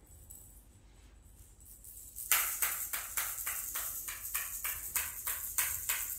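A toddler's toy rattle shaken rhythmically, about five rattling shakes a second, starting about two seconds in.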